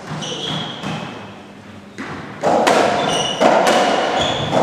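A racketball ball thudding as it bounces on the wooden floor and strikes the walls of a squash court, each hit echoing, loudest from about two seconds in. A few short high squeaks, like court shoes on the floor, come in the first second.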